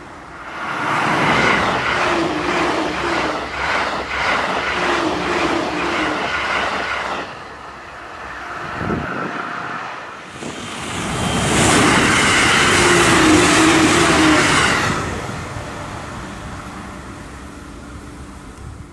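Two JR E531-series electric commuter trains passing at high speed, over 125 km/h, one after the other. Each is a loud rush of wheel-on-rail noise with a fast rhythmic clatter. The first runs from about half a second to seven seconds in, the second from about ten and a half to fifteen seconds.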